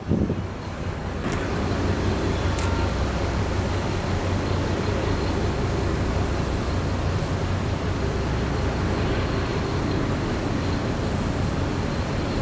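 Steady harbour ambience: a constant low hum under an even rushing noise, with no single event standing out.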